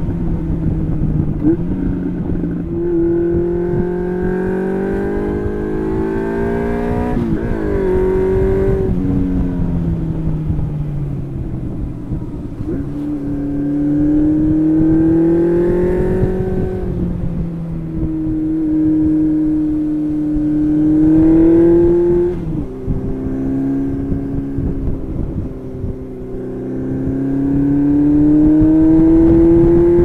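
1992 Honda CB750 Seven Fifty's carburetted inline-four on a stock exhaust with the mufflers removed, under way. Its pitch climbs steadily several times as it pulls, dropping back at gear changes or as the throttle is eased, notably about eight and twenty-two seconds in. Wind rumbles on the microphone underneath.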